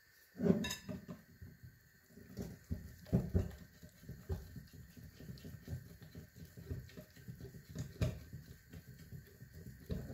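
Wire whisk stirring flour into a wet egg-and-milk batter in a glass bowl: quick, irregular wet sloshing strokes. The strokes start about half a second in, with the loudest one there, and a few louder knocks follow.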